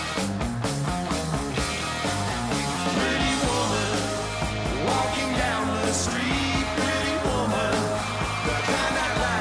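Rock music playing, with pitched gliding lines about halfway through.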